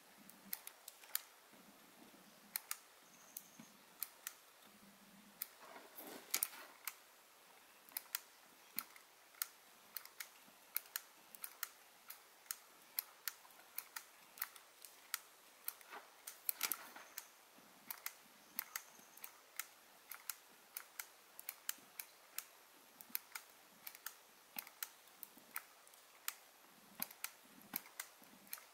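Soldering iron and solder wire working joints on a circuit board: a stream of small, sharp, irregular clicks and ticks, a few a second, with two denser, louder clusters, over a faint hiss.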